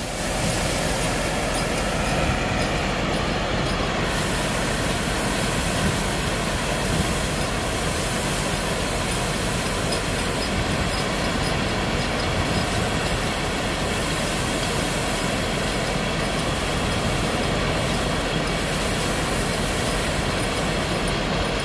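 Belt conveyor running with a continuous stream of paddy rice pouring off its end onto the grain pile in a boat's hold: a steady, unbroken rushing noise as the boat is loaded.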